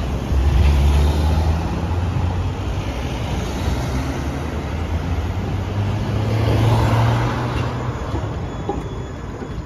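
City street traffic: a car passes close about a second in, then a low-floor articulated tram rolls past, its low hum growing to a peak about seven seconds in and fading away after.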